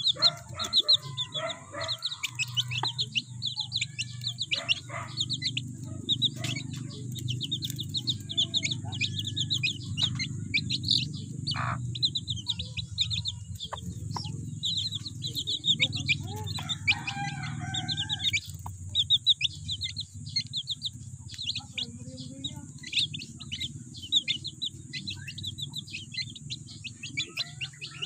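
Domestic chicks peeping in quick, continuous high chirps while they peck rice from a hand, with a hen clucking now and then. A steady low hum and a faint high steady tone run underneath.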